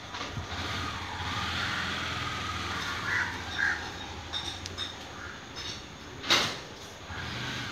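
Outdoor ambience with a steady low hum, two short bird calls in quick succession a little over three seconds in, and a single sharp knock about six seconds in.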